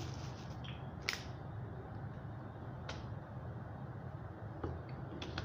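Small handling clicks from a clear drinking cup and plastic water bottle: a sharp click about a second in, another near three seconds and two fainter ones near the end, over a steady low hum.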